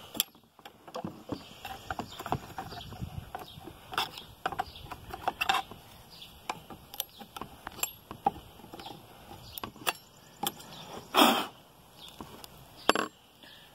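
Gloved hands clearing built-up sawdust out of an open chainsaw housing and handling the saw chain: scattered clicks, light rattles and scrapes, with one louder scuff about eleven seconds in.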